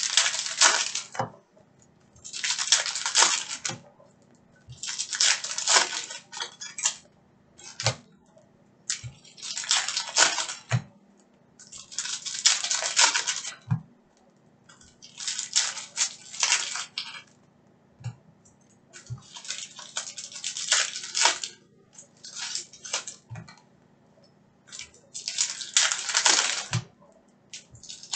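Foil trading-card packs being torn open one after another, a crinkling rip of foil every two to three seconds, with a few soft knocks of cards and packs against the table.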